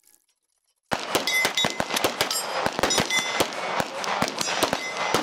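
Rapid, irregular gunfire from several firearms on a busy firing line, shots overlapping, starting about a second in after a brief quiet.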